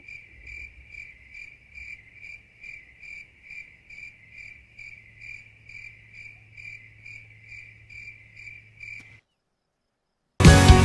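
Cricket chirping in an even rhythm, about three chirps a second, over a faint low hum. It stops about nine seconds in, and after a brief silence rock music cuts in near the end.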